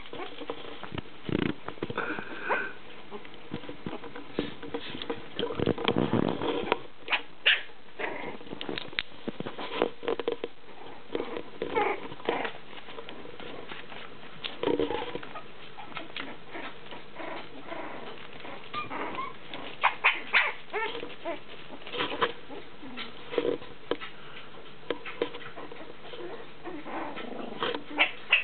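Young puppies whimpering and giving short yips at intervals, with newspaper crinkling under their paws.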